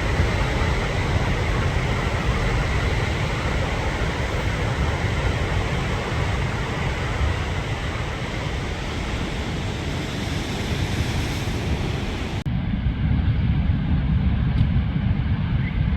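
Wind buffeting a phone's microphone over the steady wash of breaking surf. About twelve seconds in the sound changes abruptly: the hiss of the surf drops away, leaving mostly low wind noise.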